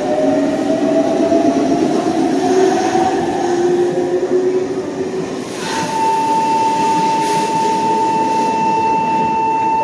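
Subway train pulling out, its traction-motor whine rising in pitch as it accelerates over rumbling running noise, then fading. About halfway through, a steady high tone starts and holds.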